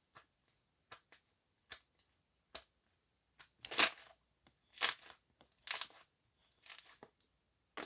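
Slime with foam worked into it being squeezed and pressed by hand, giving irregular short crackling clicks and a few longer, louder squelching pops in the middle.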